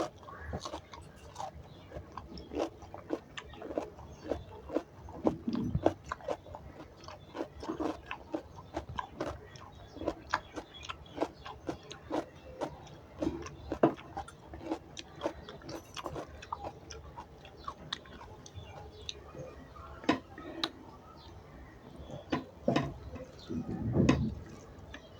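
A person eating close to the microphone: irregular wet chewing with many small mouth clicks and smacks, and a few louder, deeper bursts about five seconds in and near the end.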